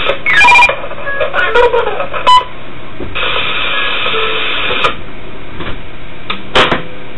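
Subway train cab radio keying: short beeps and clicks, with a stretch of static hiss about three seconds in lasting over a second, and another sharp click near the end.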